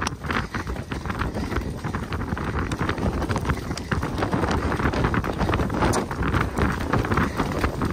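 Horses' hooves beating on a snowy trail during a ride, with wind noise on the microphone.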